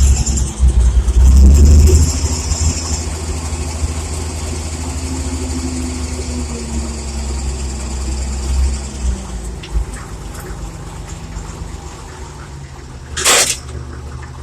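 Farm tractor engine running as it pulls away with a trailer, loud for the first couple of seconds, then steady, easing off about nine seconds in. A brief burst of noise near the end.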